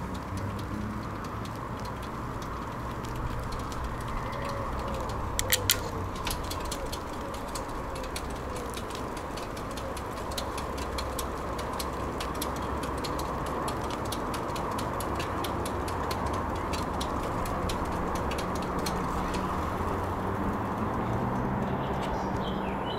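Bicycle riding along a road: a steady rush of tyre and wind noise. Three sharp knocks come about five and a half seconds in, followed by a run of lighter clicks and rattles that lasts until about sixteen seconds.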